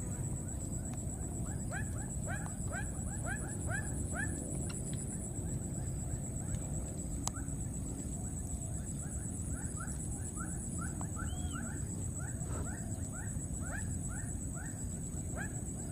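Baby monkeys giving a rapid series of short, high squeaking calls, several a second, with a brief lull about halfway through. A steady high-pitched whine runs underneath.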